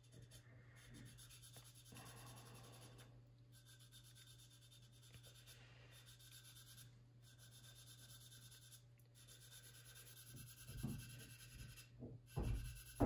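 Faint scratching of a thin sanding stick rubbed over filler on a plastic scale-model fuselage, over a steady low hum. A few soft thumps near the end.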